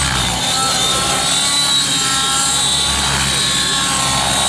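Nitro glow engine and rotors of a radio-controlled model helicopter running hard at high revs, a steady high-pitched whine whose pitch rises and falls slightly as the helicopter is thrown through low aerobatic manoeuvres.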